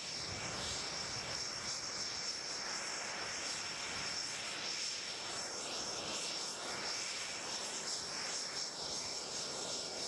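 nEUROn stealth drone's Adour turbofan jet engine running steadily as the aircraft rolls along the runway: a broad rush with a steady high whine on top.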